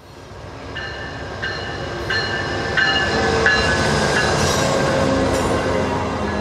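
VIA Rail passenger train rolling past close by, its noise building over the first few seconds to a loud steady rumble. Through the middle of it a bell rings with even strikes a little faster than once a second, the locomotive's bell.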